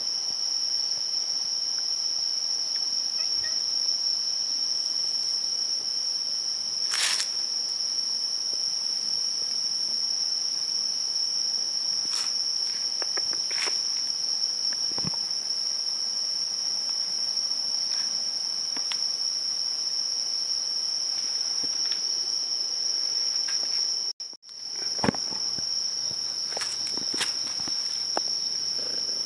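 Steady high-pitched chorus of night insects, unbroken except for a brief dropout about 24 seconds in, with a few faint taps over it.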